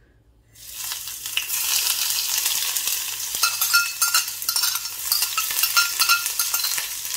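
Cumin seeds, chopped garlic and ginger hitting hot oil in a saucepan, sizzling and crackling as they start to fry for a tadka. The sizzle starts about half a second in and keeps on with many small pops.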